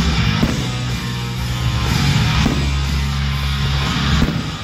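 Rock music with electric guitar, the fireworks show's soundtrack, with a few firework bursts popping through it.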